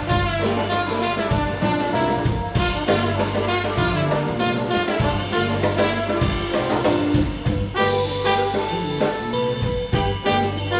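Live blues band playing, with trombone, electric guitar, bass and drum kit.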